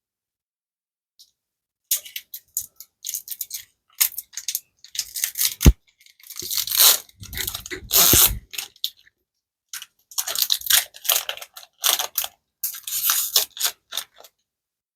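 Intermittent crinkling and rustling of foil trading-card booster pack wrappers and cards being handled, with one sharp click a little over halfway through the first half.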